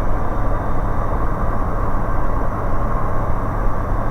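Steady drone of a Bristell light aircraft's engine and propeller heard from inside the cockpit, with a constant low hum under an even rush of noise.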